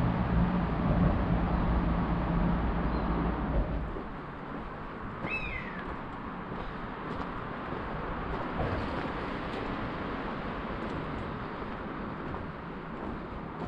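Low rumble of traffic on the road viaduct overhead, dying away about four seconds in. About five seconds in comes a single short mewing call that falls in pitch.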